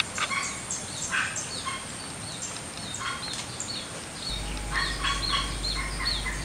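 Birds calling: a steady run of short, falling chirps, about two a second, mixed with bursts of lower, rapidly pulsed calls.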